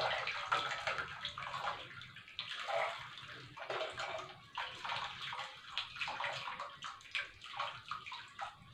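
Hot, just-boiled water poured from a jug into a metal pot of grated ginger: a splashing, gurgling pour that begins abruptly and keeps going, its strength wavering.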